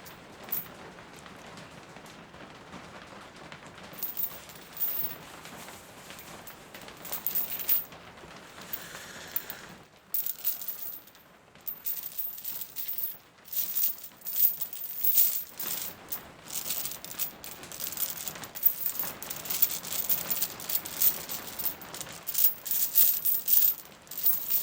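Steady rain in the background, with bright, irregular rattling of small hard objects being handled, sparse at first and getting busier and louder about halfway through.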